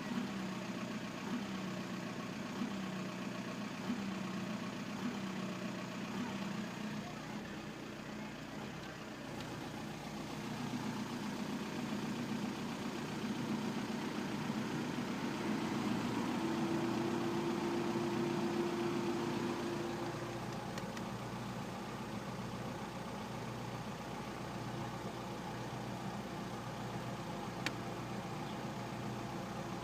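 Volkswagen 1.9 TDI AJM four-cylinder Pumpe-Düse diesel engine running steadily at idle, a little louder for a few seconds in the middle, with one sharp click near the end. The owner puts the sound down to bad injectors.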